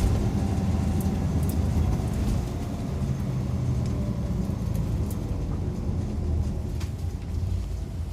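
Mitsubishi Fuso Aero Midi MK bus heard from inside the cabin while under way: a steady engine drone with a faint whine that slowly falls in pitch, and a few scattered light ticks and rattles.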